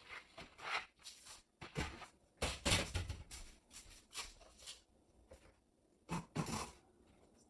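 Kitchen handling noises: a series of short clatters and scrapes as things are moved about at the counter and sink, the busiest stretch about halfway through.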